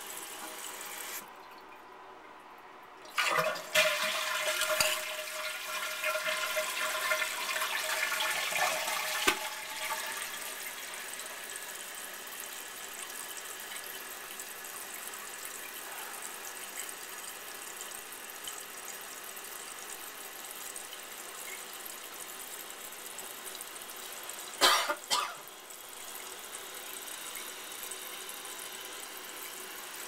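Crane Galaxy toilet tank flushing: about three seconds in, water rushes loudly for several seconds, then the fill valve hisses steadily as the tank refills. Two sharp knocks come near the end.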